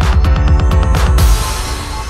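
Electronic background music with a heavy, steady beat. About a second and a half in, the beat drops out, leaving a sustained hissy wash that fades.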